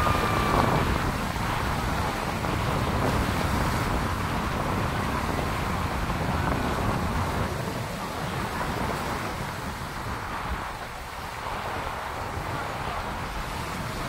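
Surf breaking on a rocky shore with strong wind buffeting the microphone: a steady rushing noise with a heavy low rumble, easing a little in the second half.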